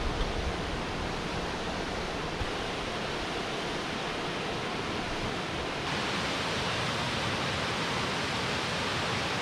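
Waterfall rushing, a steady even noise that turns a little brighter about six seconds in.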